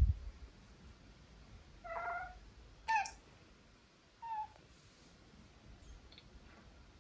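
Domestic cat meowing three times in short calls about a second apart; the middle call is the loudest and sharpest. A dull low bump comes right at the start.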